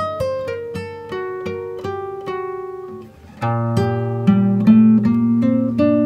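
Background music: a plucked acoustic guitar playing a run of single notes that each ring and fade. About three seconds in it briefly drops away, then comes back fuller and lower.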